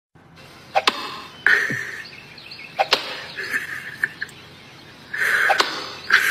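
A comedy sound effect dubbed over the clip: a sharp click followed by a short, higher-pitched sound, repeating about every two seconds, three times.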